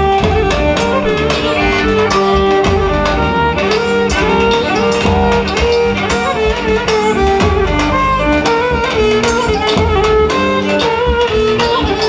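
Loud Roman havası dance music, a steady drum beat under a held, winding melody line.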